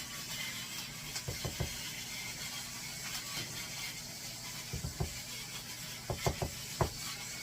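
Scattered clicks and knocks of a glass canning jar and its lid being handled while home-canned sausage gravy is emptied into a pan, over a steady hiss.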